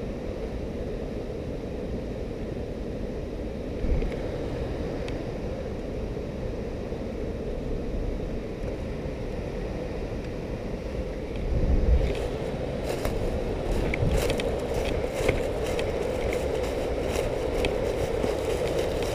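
Steady rumbling noise from a camera worn by someone on the move. About twelve seconds in, irregular crackling clicks begin, typical of footsteps on twigs and debris.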